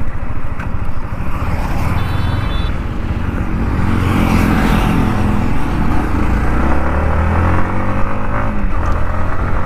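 Yamaha MT-15's 155 cc single-cylinder engine running under way, heard from the rider's seat over road and wind noise. Its note climbs over the last few seconds as the bike accelerates.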